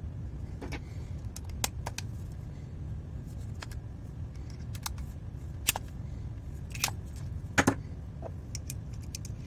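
Small metal tool parts clicking and clinking as a socket and screwdriver bits are handled around a Wera Kraftform Kompakt screwdriver handle: about a dozen scattered sharp clicks, the loudest about three-quarters of the way through, over a steady low hum.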